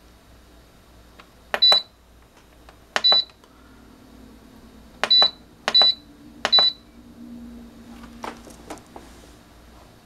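Air Innovations humidifier's control panel beeping as its humidistat button is pressed: five short high beeps, each with the click of the button, two spaced apart and then three in quicker succession. Each beep confirms a press that steps the target humidity setting. A few softer clicks follow near the end.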